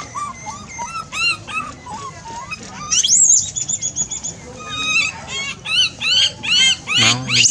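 Macaques calling: many short, high squeaks and chirps. About three seconds in comes a loud rising call followed by a quick trill of repeated high notes, and near the end a louder, harsher call.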